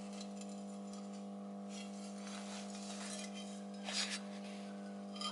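Thin tack-welded steel sheet pieces scraping and clinking as they are handled and turned, with a sharp clink about four seconds in and another near the end. A steady electrical hum runs underneath.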